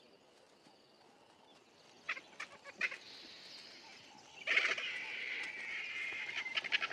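Vultures calling harshly: a few short calls, then a denser squabbling run from about four and a half seconds in.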